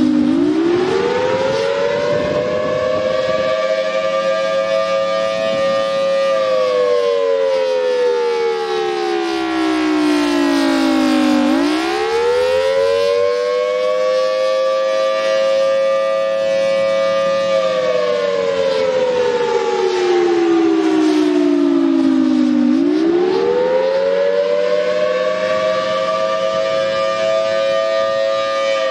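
Federal Signal Thunderbolt 1000T outdoor warning siren sounding the Attack signal, a loud wail of two close pitches together. It climbs over a few seconds, holds, then falls slowly, and the cycle repeats about every eleven seconds.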